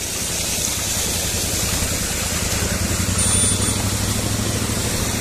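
A motor vehicle's engine running steadily with a low hum as it drives through floodwater, over a steady wash of water noise.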